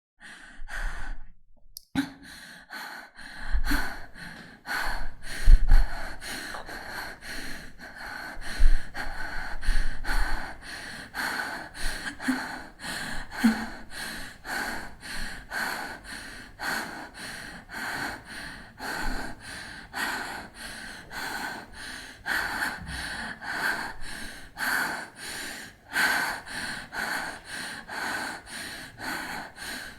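A woman breathing heavily: rapid panting, about two quick breaths a second, starting just after the beginning with a brief pause about a second and a half in.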